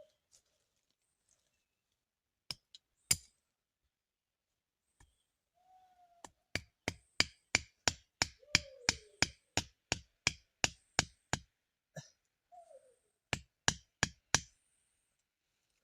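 A run of sharp knocks, like chopping or tapping, about three a second for several seconds, with a few single knocks before and a short group of four near the end. A few brief falling squeaks sound between the knocks.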